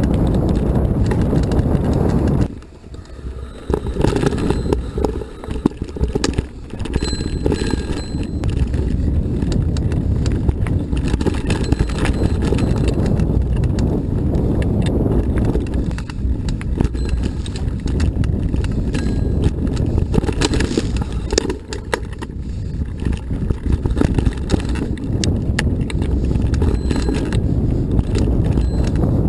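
Mountain bike rattling and clattering over a rough dirt trail, heard from a handlebar-mounted action camera, with a steady rumble of wind on its microphone. The noise eases for a moment about three seconds in.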